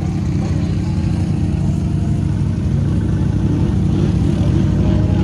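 Off-road vehicle engines, a Can-Am Renegade ATV and a side-by-side UTV, running steadily at low trail speed in the mud; the sound grows louder toward the end as the side-by-side comes closer.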